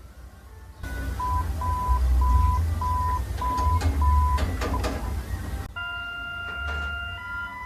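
Emergency alert alarm audio. First comes a noisy, rumbling recording with a single beep repeating about twice a second. About two-thirds of the way in it cuts to a steady alert tone of several pitches sounding together, which shifts pitch near the end.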